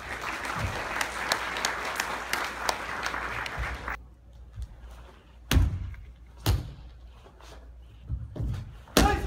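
Audience applauding for about four seconds, the clapping stopping abruptly. Then come three sharp thuds of bare feet stamping on a wooden stage floor during karate sparring, with smaller knocks between them.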